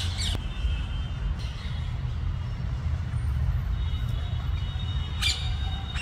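Rose-ringed parakeets giving short harsh squawks, one right at the start and another about five seconds in, over a steady low rumble.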